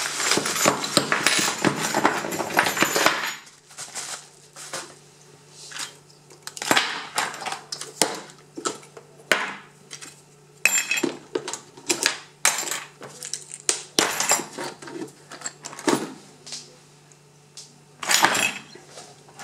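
Paper wrapping crumpled and rustled for about three seconds, then metal padlocks, lock cylinders and keys clinking and knocking in many short irregular clatters as they are handled and shuffled on a wooden table.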